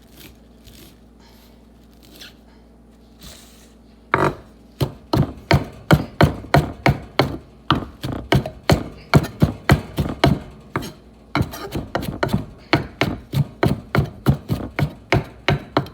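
Kitchen knife chopping a pile of fresh herbs (parsley, cilantro and mint) on a cutting board. After a few faint taps it becomes a steady run of sharp chops about four seconds in, two to three a second, with a brief pause a little past the middle.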